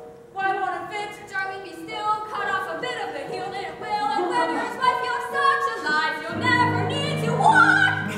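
Female singing from a live stage musical: a quick melody of short sung notes, with lower held notes joining about six seconds in.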